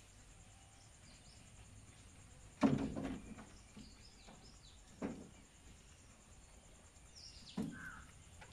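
Rabbits hopping and shifting on a wire-mesh hutch floor, making three dull knocks with a little rattle. The first, about two and a half seconds in, is the loudest. Faint bird chirps sound in the background.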